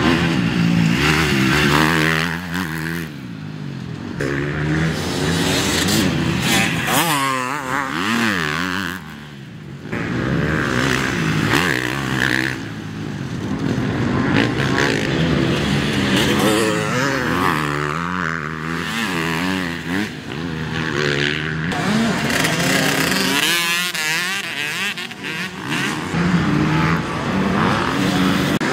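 Several motocross bikes racing, their engines revving up and falling back over and over as they accelerate, shift and back off around the track.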